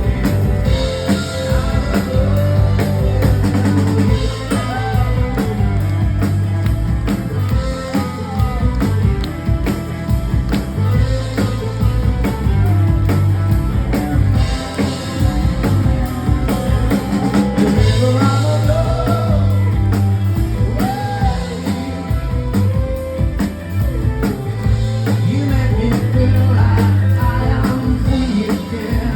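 Live rock band playing: drum kit, bass and guitar, with a wavering melodic lead line over them.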